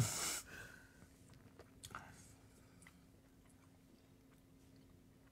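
Quiet room tone with a faint steady hum and a few soft clicks, after a brief hiss at the very start.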